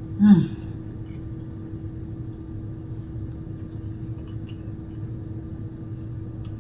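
A short "mmm" at the start, then a steady low electrical hum with a few faint clicks of a fork and knife against a plate.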